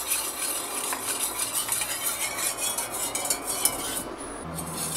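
Wire whisk stirring liquid in a stainless steel bowl, a rapid clattering scrape of wire against metal, as ferrous sulfate is whisked into vinegar.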